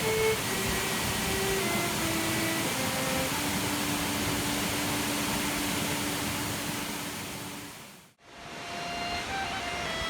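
Steady rushing noise of a waterfall, with a slow melody of long held notes faintly over it. The sound dips out briefly about eight seconds in, then returns.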